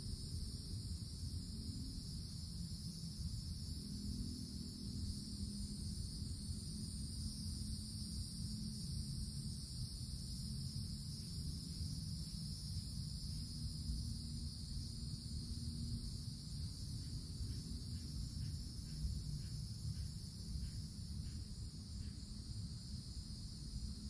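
Cicadas droning in a steady, unbroken summer chorus, high-pitched and even throughout, over a low steady rumble.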